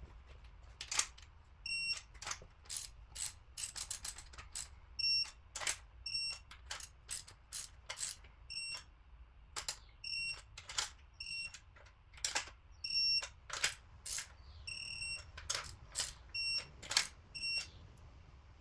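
Torque wrench ratcheting on the cylinder head bolts of a Mercedes-AMG M157 V8, a run of irregular sharp clicks as the bolts are tightened to their specified torque. About ten short, high-pitched tones sound among the clicks.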